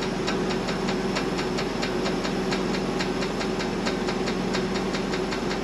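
Tractor engine running steadily with a steady hum and a fast, even ticking, while its hydraulics raise the seeding bar's rams to bleed air out of the system.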